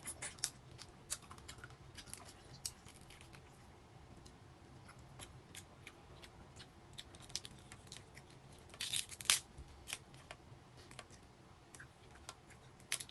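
Crab shell being cracked and pulled apart: a string of sharp cracks and clicks, with a loud cluster about nine seconds in.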